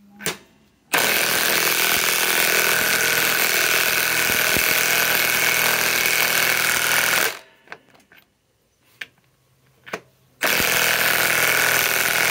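Milwaukee M18 Fuel 2967-20 high-torque 1/2-inch cordless impact wrench hammering a 6-inch lag screw into wood through a 15/16 socket. It runs in one long burst of about six seconds, stops, and starts a second burst near the end.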